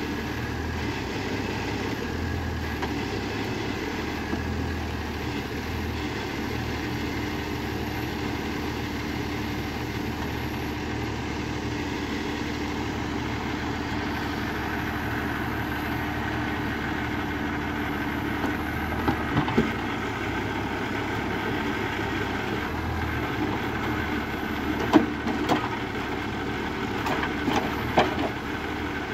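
Valtra 8350 tractor's diesel engine running steadily to drive the hydraulics of a Palms forestry crane loading logs. From about two-thirds of the way through come several sharp knocks of logs striking one another in the grapple and on the load.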